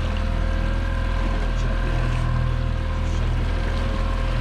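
Boat engine running steadily while trolling: a constant low drone with a few faint steady higher tones.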